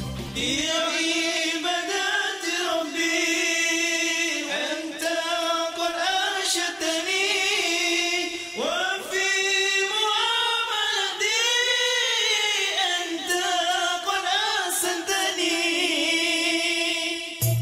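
Unaccompanied group vocal singing in harmony, several voices with vibrato and no bass or drums beneath them.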